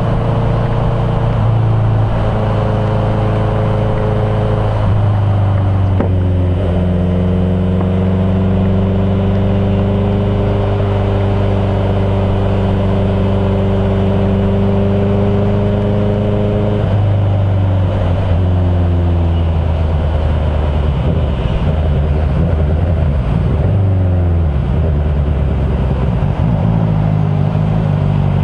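Honda CBR650F inline-four engine running at road speed over wind and road noise, its pitch stepping down and back up several times. A faint steady high ringing sits over it, which the rider takes for a magnetic-field noise picked up when passing underground cables or high-voltage lines.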